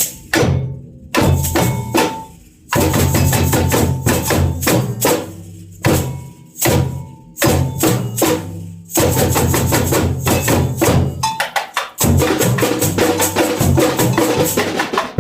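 Samba bateria playing a groove together: deep pitched drum beats under snare and bright rattling percussion in a steady rhythm, which stops abruptly at the end.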